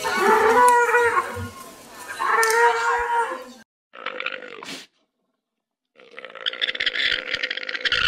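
Animal calls: a run of pitched, wavering calls, then a short call about four seconds in, and a buzzy, rapidly pulsing call from about six seconds in.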